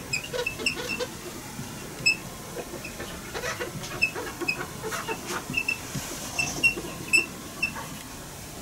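A marker pen writing on a whiteboard: many short, uneven squeaks and scrapes as each letter is stroked out.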